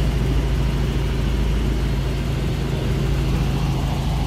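Helicopter in flight heard from on board: a steady drone of engine and rotor with a strong, even low hum.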